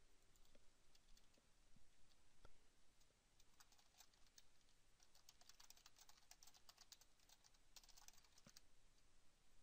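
Faint typing on a computer keyboard: a few scattered key clicks, then quick runs of keystrokes.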